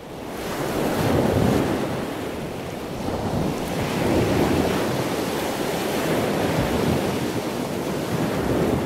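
Ocean surf sound effect: waves washing on a beach. It fades in at the start and swells again about four seconds in.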